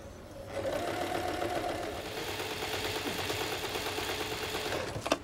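Electric sewing machine running as it stitches a hat's cloth peak, a steady motor hum that starts about half a second in and stops just before the end.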